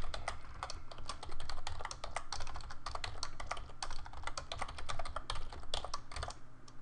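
Typing on a computer keyboard: a fast, uneven run of keystroke clicks, pausing briefly near the end.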